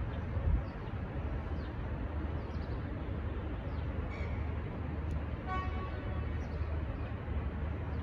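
Steady low rumble of the departing freight train's diesel locomotives in the distance. A short distant horn toot comes about five and a half seconds in, and a few faint bird chirps are heard early on.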